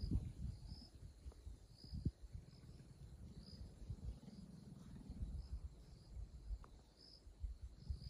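Faint insect chirping: a short, high chirp repeating about once a second over a low rumble.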